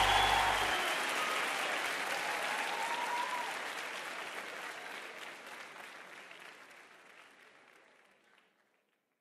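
Live concert audience applauding, while a low held note from the stage stops within the first second. The applause fades out steadily to silence near the end.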